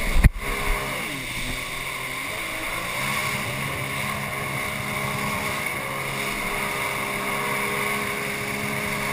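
Jet ski engine running at speed, its note shifting in the first couple of seconds and then holding steady, with water and wind noise. There is a loud knock right at the start.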